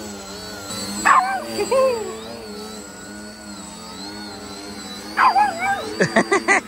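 A dog barking and yipping excitedly: single high yelps about a second in and again about five seconds in, then a quick run of yips near the end. Under them is the steady whine of an electric RC plane's motor held in a hover.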